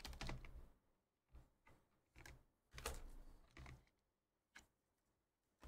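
Faint, irregular rustles and ticks as hands handle a trading card, coming in short scattered bursts with a small cluster about three seconds in.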